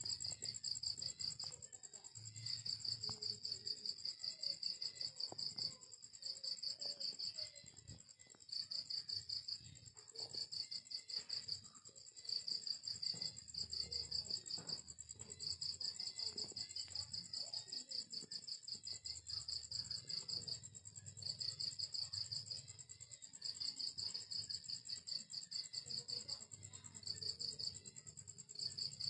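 Crickets chirping in rapid pulsed trills, each phrase lasting a second or two with short gaps between, over a steady higher-pitched insect buzz.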